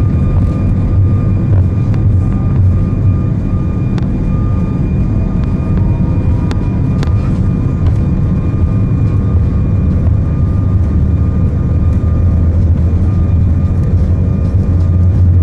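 Cabin noise of an Airbus A340-600 climbing out after takeoff: a steady, loud low drone from its four Rolls-Royce Trent 500 engines, with faint steady whining tones above it.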